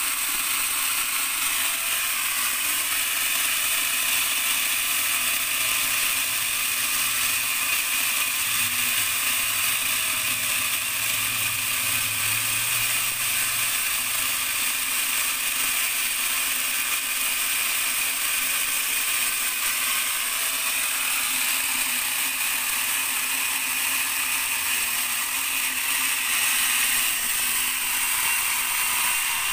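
Angle grinder fitted with a chainsaw converter attachment, its chain cutting into a tree trunk: a steady, loud motor whine with chain rattle that stops abruptly at the very end.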